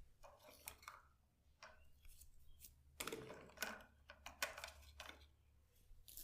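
Close-miked hands rubbing, scratching and tapping on hair and scalp in a head massage: a run of crackly rustles and sharp clicks, busiest from about three to five seconds in.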